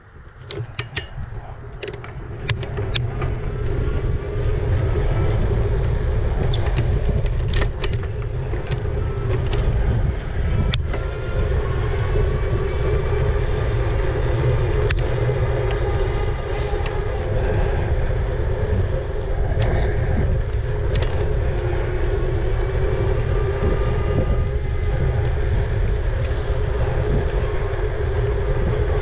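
Riding an e-bike: wind buffets the microphone in a heavy rumble that builds over the first few seconds as the bike gets up to speed, then holds steady. Under it runs a steady whine from the bike's motor, with a few clicks near the start.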